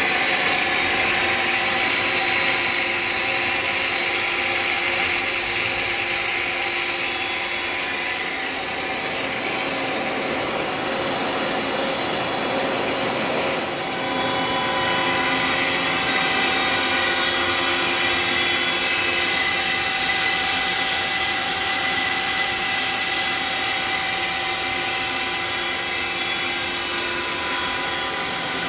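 Doosan Daewoo Puma 2000SY CNC lathe running: a steady machine whine made of several held tones. A hiss fades out about eight seconds in, and the mix of tones changes briefly about fourteen seconds in before running steady again.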